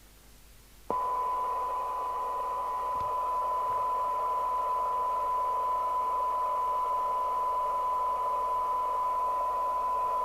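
A CB radio receiver's loudspeaker sounding the signal generator's steady 1 kHz test tone, with a band of hiss around it. It comes on suddenly about a second in and holds unchanged: the received test signal used to measure SINAD while the receiver is aligned.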